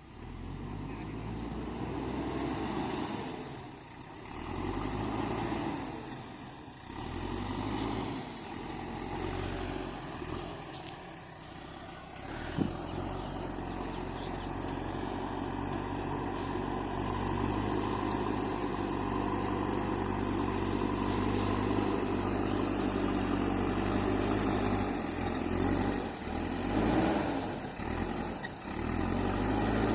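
JCB 3DX backhoe loader's diesel engine working, its note rising and falling repeatedly in the first half, with a single sharp knock about twelve seconds in, then running more evenly.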